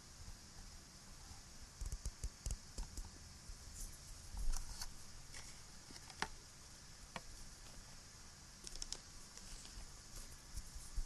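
Close-miked fidgeting with small objects: light clicks and taps in irregular clusters, with a few soft low bumps, the loudest about four and a half seconds in. A steady recording hiss runs underneath.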